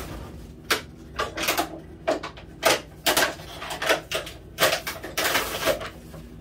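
Irregular short scrapes and clicks, about two a second, from working a brush applicator in an open can of pipe thread-sealant paste.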